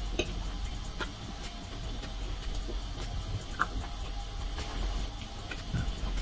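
A person chewing grilled beef steak with the mouth closed, with a few short, sharp wet mouth clicks over a steady low hum.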